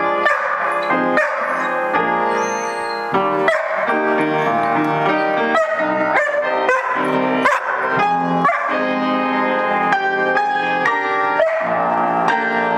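Upright piano being played, with a Bouvier des Flandres vocalizing along over it: several short dog calls that rise and bend in pitch between the piano notes.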